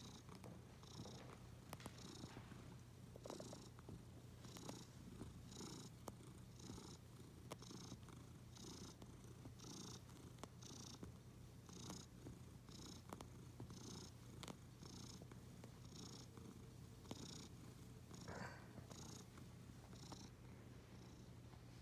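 Domestic cat purring faintly and steadily, its purr swelling in a rhythm of about once a second with each breath.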